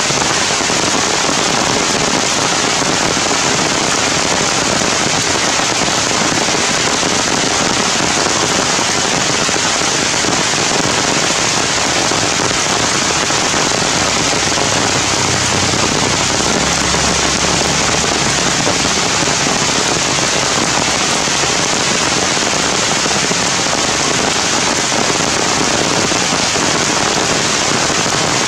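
Heavy rain pouring steadily onto forest leaves and branches: a dense, even hiss.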